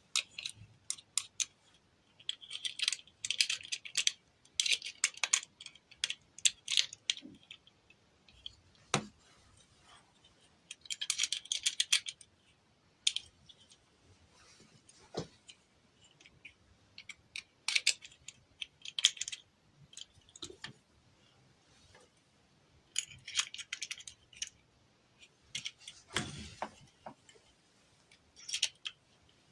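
Close-up handling noises of small craft materials: intermittent bursts of rustling, snipping and crinkling with scattered sharp clicks and a duller knock near the end.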